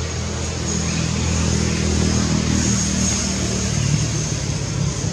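A motor vehicle engine running with a steady low hum, a little louder in the middle.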